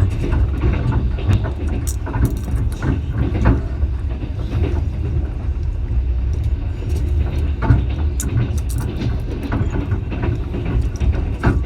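Passenger train running on the rails: a steady low rumble with irregular clicks, knocks and rattles from the wheels and carriage.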